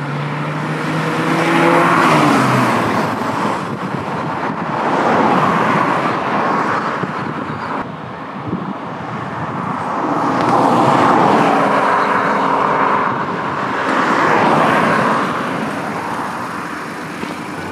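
Cars passing on a road: a rushing sound that rises and falls about four times as vehicles go by one after another, with an engine's steady hum in the first two seconds or so.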